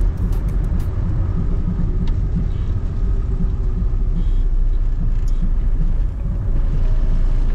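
A 1998 Sprinter motorhome driving along the road: a steady, loud, low rumble of engine and road noise.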